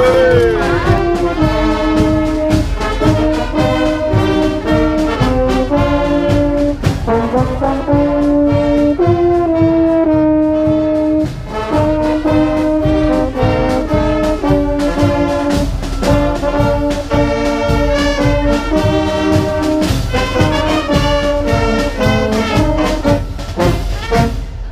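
Brass band music, trombones and trumpets playing a tune in held notes over a steady beat.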